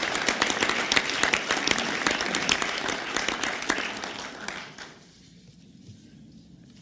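Audience applauding, many hands clapping, fading out about five seconds in, leaving quiet room tone.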